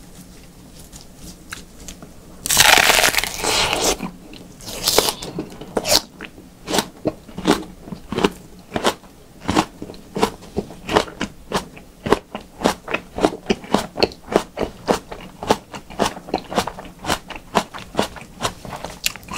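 Close-up crunching of a whole raw white onion being eaten: a loud crunchy bite a few seconds in, then steady chewing at about two to three crunches a second.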